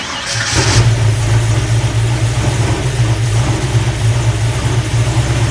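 A brand new Ford 351 Cleveland V8 firing for the first time: it catches with a short burst of noise in the first second, then runs at a steady idle. The engine has not yet been tuned.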